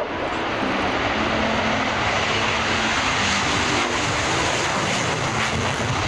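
Twin-engine MiG-29 jet fighter taking off on afterburner: a loud, steady jet roar.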